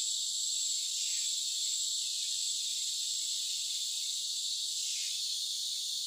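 Steady, high-pitched chorus of rainforest insects, an unbroken droning hiss.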